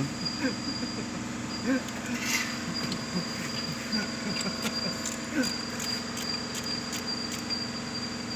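A steady mechanical hum and a thin high whine run throughout, with scattered light clicks and taps of hand work on the engine.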